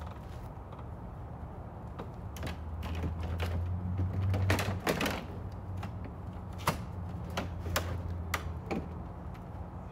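Irregular clicks and light knocks of hand work on a car's front end under the open hood, plastic trim and clips being handled. The clicks bunch into a denser rattling run about halfway through, with a few single sharp clicks after it.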